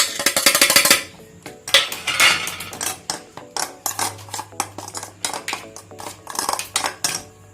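A metal spoon clinking and scraping against a bowl in quick, irregular strokes, loudest in the first second, as flour and spices are spooned in and stirred.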